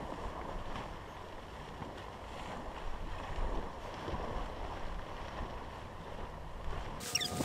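Steady wind buffeting the microphone, with faint rustling of tent fabric and poles as a dome tent is raised. Right at the end the sound changes abruptly to sharper clicks and a few short tones.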